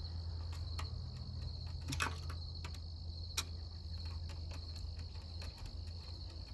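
Scattered small clicks and taps of screws being backed out of a TV speaker, over a steady low hum and a constant high-pitched chirping.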